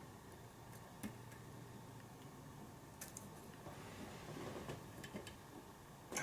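Faint, scattered ticks and clicks of a lock pick working the pins of a Sargent lock cylinder held under turning tension.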